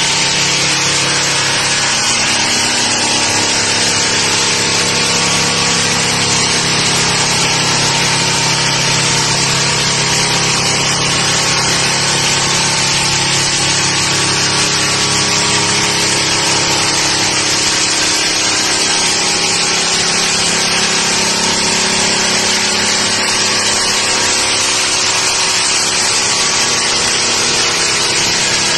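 Heavy-duty electric drum floor sander with a 300 mm sanding drum running steadily while it sands old stained wooden floorboards down to bare wood: a constant motor hum under a high hiss of the drum on the wood.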